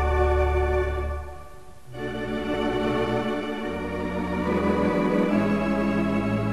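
Background music of slow, sustained held chords that change every second or so, with a brief drop in loudness about one and a half seconds in.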